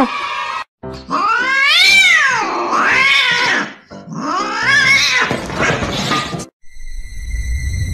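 Domestic cat yowling: long drawn-out calls that rise and fall in pitch, with a short break about halfway. Near the end a steady high tone and low rumble of music come in.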